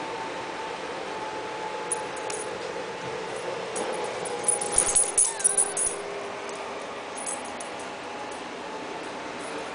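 A dog moving about, with a quick cluster of light, jingling clicks about halfway through, over a steady low hum.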